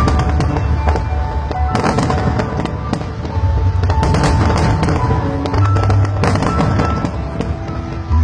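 Aerial fireworks display: shells bursting in quick succession with crackling and deep booms, over accompanying music with held notes.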